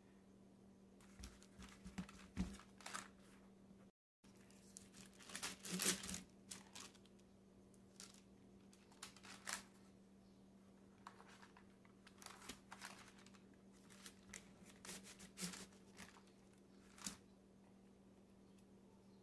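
Faint, scattered rustling and crinkling of parchment paper and soft taps as pie crust dough is unrolled and pressed into rounds with a pie cutter, over a steady low hum.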